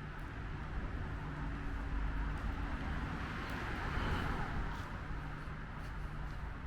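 Highway traffic: a steady rush of tyres and engines, swelling as a vehicle passes about four seconds in.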